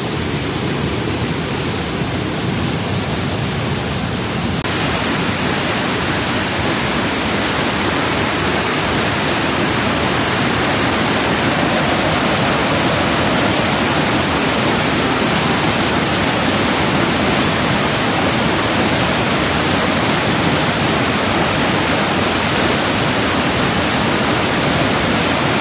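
Flood-swollen brook rushing fast over rocks and debris, a loud steady noise of churning water, a little louder from about five seconds in.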